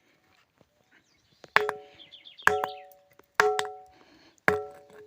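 Ringing rock (bell stone) struck four times, about a second apart. Each blow is a sharp clack followed by a bell-like ring of several clear tones that dies away within about a second.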